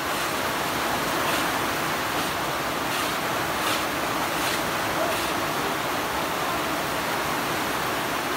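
Steady rushing noise, with a run of faint scrapes or knocks about once a second in the first half.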